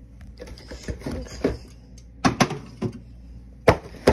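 Soda cans or bottles knocking and clinking as they are set into a mini fridge: a scatter of sharp knocks, the loudest a few in quick succession past the middle and one more near the end.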